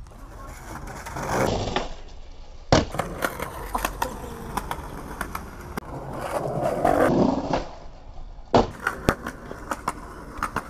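Skateboard wheels rolling on concrete, growing louder as the board approaches, then a single sharp clack of the board striking the ground, followed by a run of light clicks as it rolls on; this happens twice.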